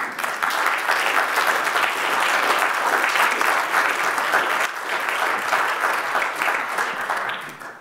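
Congregation applauding: dense clapping that starts at once, holds steady and fades away near the end.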